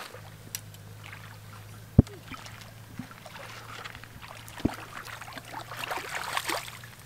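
A toddler splashing in shallow creek water, the splashing strongest near the end. Two sharp knocks, one about two seconds in and one past the middle, over a steady low hum.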